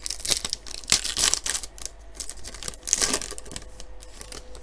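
A foil trading-card pack wrapper being torn open and crinkled in the hands, in two rustling spells, the second about three seconds in.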